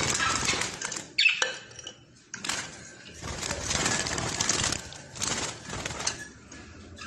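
Metallic clattering, clinking and scraping from a bird cage and nest box being handled and opened, with a sharp knock about a second in.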